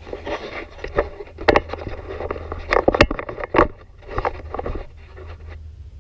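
Metal clunks, knocks and scraping as the electric starter is worked off a Briggs & Stratton opposed-twin engine, with a cluster of sharp knocks in the middle that dies away near the end.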